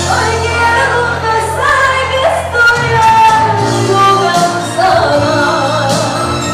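A woman singing into a handheld microphone over backing music, her voice holding long sustained notes above a steady instrumental bed.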